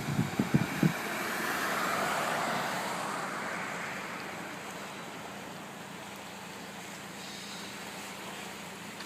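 A few low thumps of wind on the microphone in the first second, then the noise of a passing vehicle swelling and fading over a few seconds into a steady outdoor hiss.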